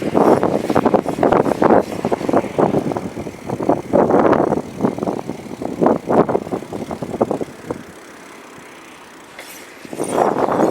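Wind buffeting and rattling on a moving bicycle, an uneven rushing clatter that drops to a lull for about two seconds near the end before picking up again.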